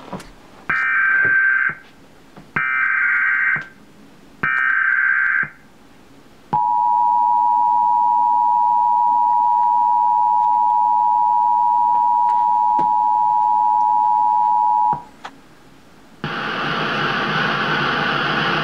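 Emergency Alert System signal for a tornado warning: three bursts of SAME header data, each about a second long, followed by the two-tone EAS attention signal held steady for about eight seconds. A steady hiss of broadcast static starts about a second after the tone ends.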